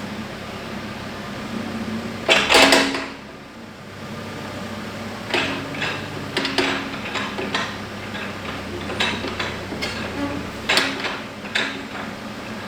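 Backhoe running with a steady low engine hum, overlaid by repeated metallic clanks and knocks; the loudest burst of clanking comes about two and a half seconds in.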